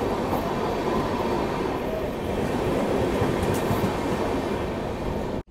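Passenger train running out of a station: a steady rumble of its wheels on the rails, heard from the coach's open doorway.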